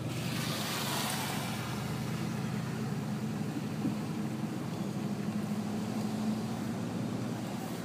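A moving car running steadily, with a low engine hum and road noise; a louder rushing hiss swells about a second in and then eases.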